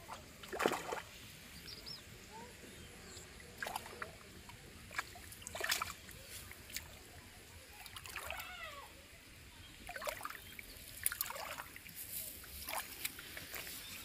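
Intermittent splashes and wet slaps of a hooked fish thrashing in shallow pond water, the loudest less than a second in.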